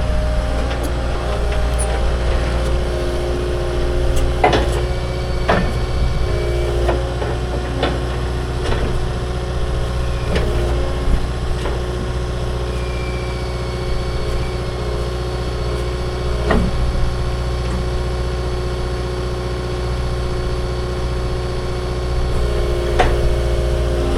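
An engine running steadily at idle, with a handful of sharp metallic knocks over it, one around four and a half seconds in, others near five and a half, eight, sixteen and a half, and twenty-three seconds.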